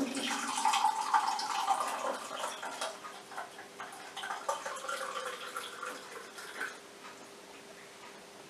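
Fruit smoothie pouring from a Kenwood smoothie maker's dispenser tap into a glass: a steady trickle with small drips that thins out and stops about seven seconds in.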